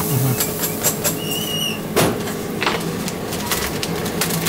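Kitchen handling noise at a sandwich shop's electric contact grill: clicks and knocks of metal and utensils as a toasted sandwich is taken off the grill, over a steady electrical hum. A brief high squeak comes about a second in, and the loudest knock about two seconds in.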